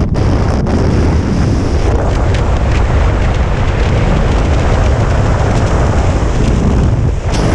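Loud, steady rush of wind buffeting the camera microphone of a paraglider in flight, heaviest in the low end, from the fast airflow of a tandem SAT rotation. It dips briefly near the end.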